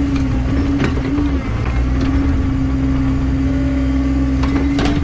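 Bobcat E60 mini excavator's diesel engine and hydraulics running under load, heard from inside the cab as a steady whine over a low drone. The pitch dips briefly a little over a second in, and there are a couple of sharp knocks as the bucket and blade work loose dirt.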